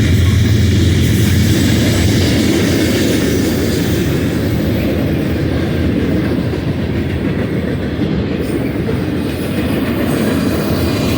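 Freight cars of a BNSF manifest train rolling by, a steady loud rumble of steel wheels on the rails with clacking over the joints. A low hum drops away about a second in.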